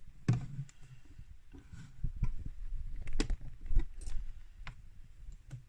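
Scattered clicks and light plastic knocks from a small one-cup filter coffee maker being handled just after its start buttons are pressed, the sharpest knocks about three and four seconds in.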